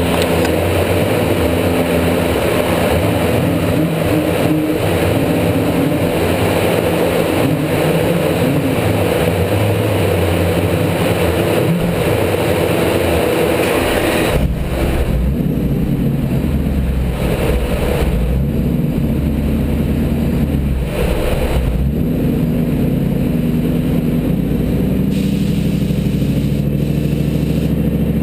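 Kenne Bell–supercharged 5.4-litre V8 of a Ford F-150 Lightning running at a steady speed on a chassis dyno, with no rise in revs. A loud rushing hiss over it drops away about halfway through, leaving the engine's low rumble.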